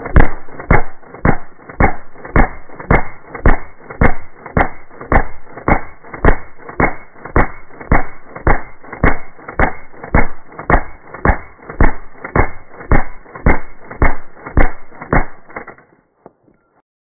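Integrally suppressed HK MP5SD 9mm submachine gun fired in single shots, an even string of about two shots a second, some thirty rounds, stopping near the end.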